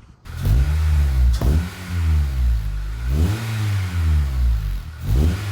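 Honda Civic EP3's four-cylinder engine through a Yonaka cat-back exhaust, revved three times. Each rev is a quick rise in pitch followed by a slower fall back toward idle.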